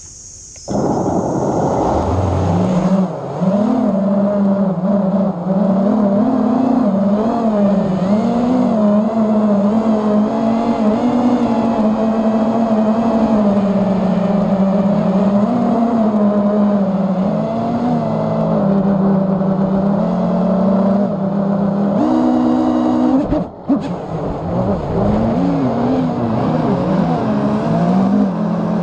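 FPV racing quadcopter's brushless motors and propellers whining. The motors spool up less than a second in, the pitch climbing for a couple of seconds, then wavering up and down with the throttle, with a brief jump in pitch and a short sudden drop late on.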